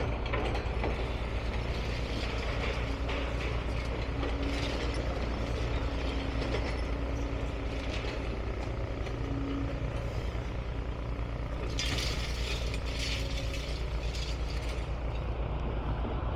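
Heavy demolition machinery running steadily with a low engine rumble, with intermittent clatter and scraping of rubble and materials being moved, heaviest for a few seconds near the end.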